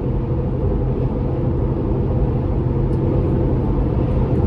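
Toyota 4.7-litre V8 with a Magnaflow Overland stainless cat-back exhaust, heard from inside the cabin while cruising: a steady low exhaust drone mixed with road and tyre noise.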